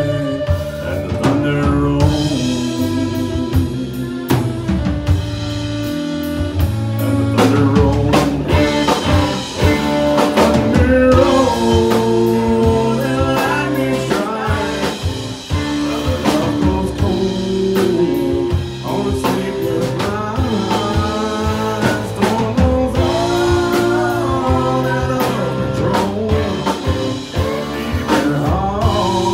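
Live country band playing: fiddle lead over acoustic guitar and electric bass with a steady beat, and singing at times.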